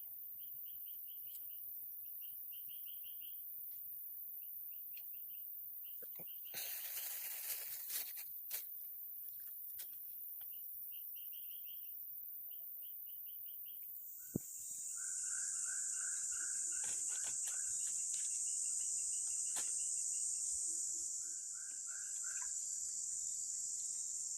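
Outdoor evening ambience: a steady high insect hiss with trains of short chirping calls repeating every second or two. A brief rustle about seven seconds in, then a louder steady high insect drone sets in about halfway through and eases near the end.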